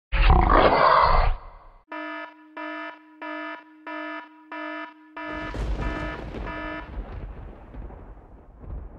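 A loud rushing burst, then an electronic beeping tone that sounds about six times, roughly every two-thirds of a second. The tone then holds over a low rumble that dies away.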